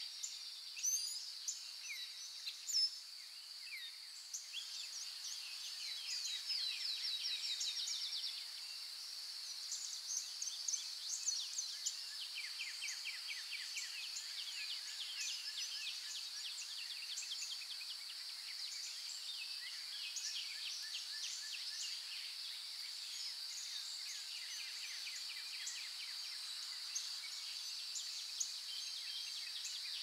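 Birds chirping and trilling all through, with a quick run of trills about six to eight seconds in and the densest chirping in the middle, over a steady high-pitched background hum.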